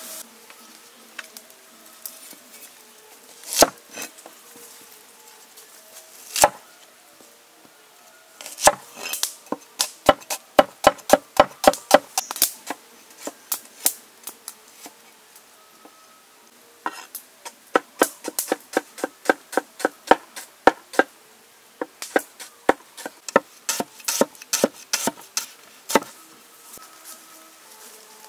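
A large knife chopping vegetables on a wooden table, in quick runs of sharp knocks, a few strikes each second. There are a couple of single strikes first, then a fast run, a short pause, and a longer run.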